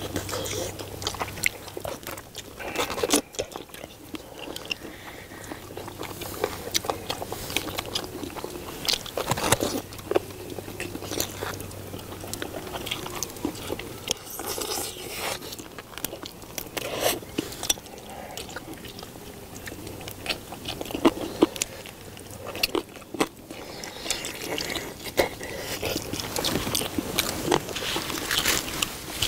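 Several people chewing and biting into braised spicy chicken, with irregular sharp clicks of chopsticks against bowls.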